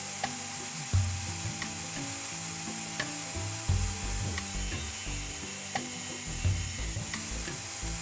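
Background music: a low bass line moving in short held notes, with a light ticking beat and a few deeper thumps.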